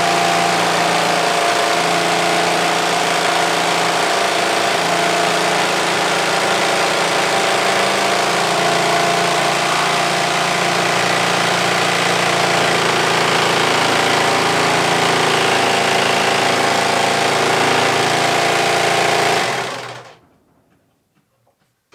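Electric jigsaw running steadily as its blade cuts through a wooden board; it is switched off near the end and dies away within about a second.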